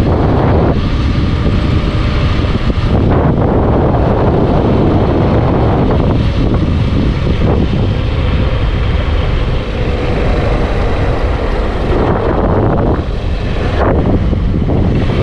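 Wind rushing over the microphone of a moving motorcycle, with the motorcycle's engine running steadily underneath.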